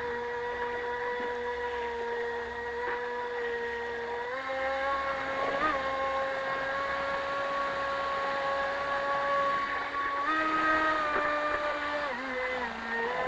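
RC mini jet boat's motor running at a steady pitch, stepping up with more throttle about four seconds in and again about ten seconds in, then dipping briefly near the end.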